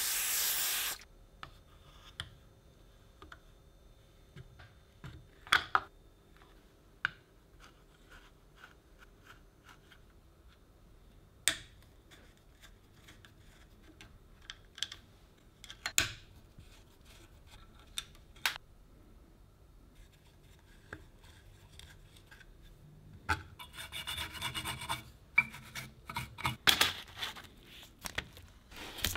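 A short hiss of an aerosol spray onto rusty metal lamp parts, ending about a second in. Then sparse clicks, knocks and scrapes of metal hand tools on the corroded steel housing, with a screwdriver working at a screw. Near the end come a few seconds of denser rubbing and scraping.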